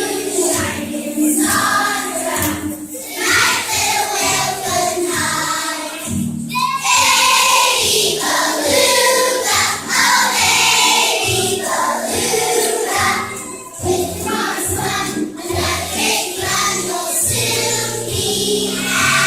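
A choir singing a song with musical accompaniment.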